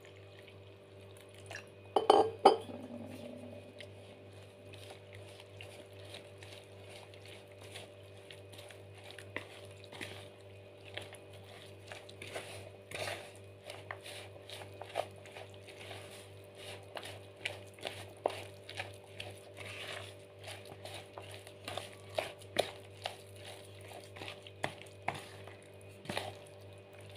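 A plastic spoon stirring a thick vegetable fritter batter in a plastic bowl, making frequent small knocks and scrapes against the bowl that come about one or two a second and grow busier toward the end. There is a louder clatter about two seconds in.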